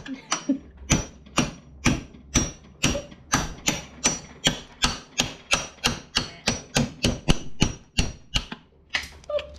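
Hammer striking a steel pin punch to drive a rivet pin out of a motorcycle drive chain clamped in a vise, breaking the chain. A steady run of sharp metal-on-metal blows, about three a second, that stops shortly before the end.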